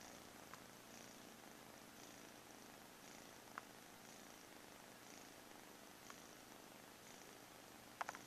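A domestic cat purring faintly and steadily, the purr swelling about once a second with its breathing. A few small clicks come through, and a short cluster of louder clicks near the end.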